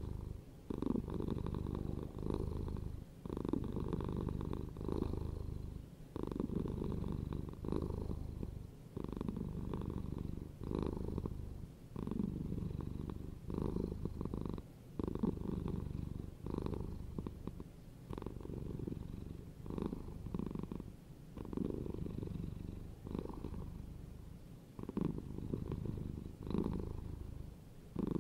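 A domestic cat purring steadily, the low rumble swelling and dipping with its breathing about once a second.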